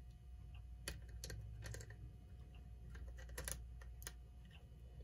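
Scattered light clicks and taps of small metal clock parts being handled and fitted as the synchronous motor's rotor is set back into the Telechron clock movement, about half a dozen spread unevenly, over a faint low hum.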